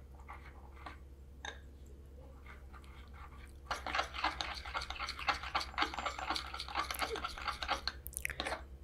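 Metal spoon stirring a thick cornflour-and-flour batter in a glass bowl: faint at first, then brisk, rapid scraping and clicking against the glass from about four seconds in.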